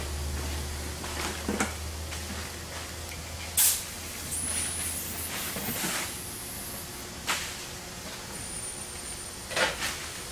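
Short sharp hissing bursts, the loudest about three and a half seconds in and another strong one near the end, with smaller scrapes between. A low steady hum fades out about halfway, and a faint high whistle sets in over the last couple of seconds.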